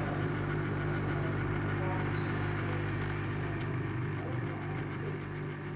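Steady low electrical hum, with a faint short high tone about two seconds in and a small tick past the middle.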